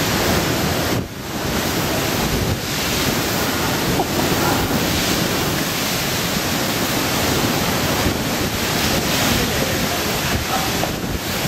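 Typhoon-force wind with driving rain: a loud, steady rushing noise that dips briefly about a second in.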